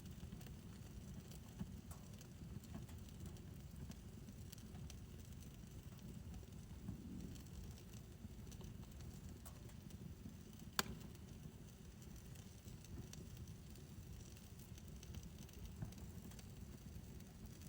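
Backyard fire pit burning with a faint, steady low rumble and scattered soft crackles, and one sharp pop about eleven seconds in.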